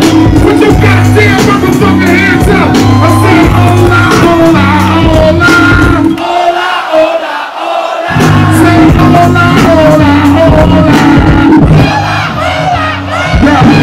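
Hip hop beat played loud over a live PA, with a heavy bass and kick pattern, a sung vocal line over it and a crowd cheering. About six seconds in the bass and kick cut out for roughly two seconds, then the beat drops back in.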